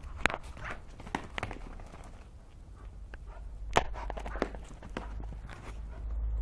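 A young pitbull's claws and paws tapping and scrabbling on a concrete floor during rough play with a cloth toy. Irregular clicks and scuffs, the sharpest about a third of a second in and again near four seconds in.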